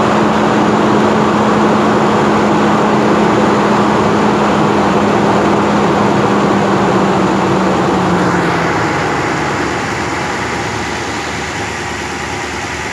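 Car engine running under the hood with its air conditioning on, a loud steady mechanical noise with a hum that sags in pitch and fades about eight seconds in.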